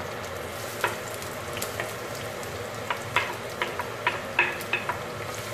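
Hot oil with spices sizzling steadily as diced red onion is scraped into it with a wooden spoon, with a scattering of sharp pops and clicks, most of them in the second half.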